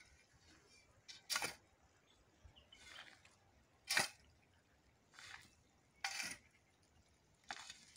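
Steel shovel scooping a soil and sheep-manure mix and tipping it into a metal cylinder: about six short scraping, pouring swishes, one every second or so.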